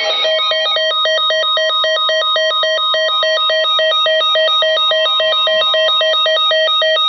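Electronic emergency alert tone: a steady tone near 1 kHz under a fast warbling two-pitch beep, like a telephone ringer, cutting off abruptly at the end. It heralds a flash flood warning being issued.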